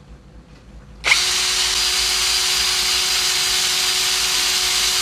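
Unbranded cordless hammer drill switched on about a second in and run free with no load at full speed in high gear, a steady whine at about 1,700 rpm.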